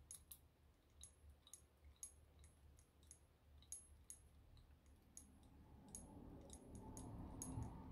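Faint, irregular metallic clicks, about one every half second, from lock picks working inside a padlock's keyway.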